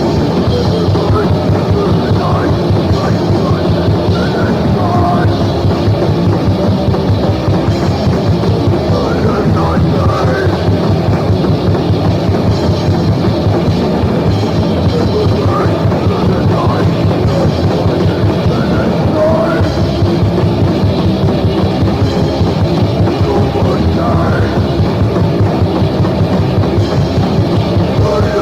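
Crust punk band playing at full tilt: distorted guitars and bass over fast, driving drums, from a 1999 demo recording.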